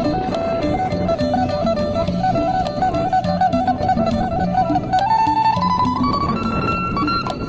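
Isan folk music played live: a quick plucked-string melody over a repeating bass line and light percussion, the melody climbing to higher notes about five seconds in.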